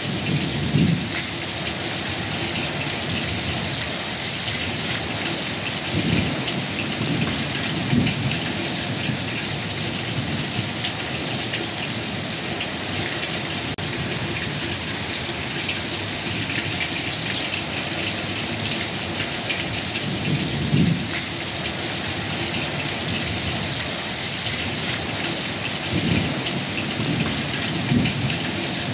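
Heavy rain pouring steadily, with a handful of short, low rumbles of thunder breaking through it.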